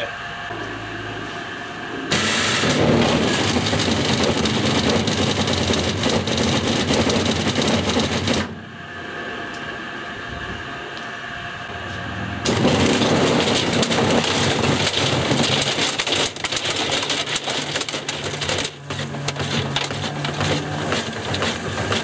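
Broken pieces of an old VCR tumbling and clattering inside the rotating drum of a Fisher & Paykel washing machine lying on its side, turned slowly by its 42-pole Smart Drive direct-drive motor. A loud clattering runs for about six seconds from about two seconds in, drops to a steady hum, then comes back for another six seconds before easing to a lighter rattle near the end.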